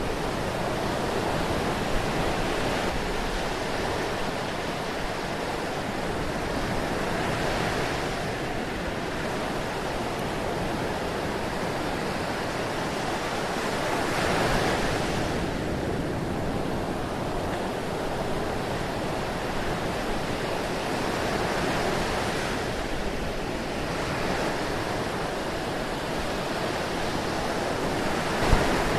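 Ocean surf: a steady wash of waves, with a breaker swelling up about every seven or eight seconds. A single brief click near the end.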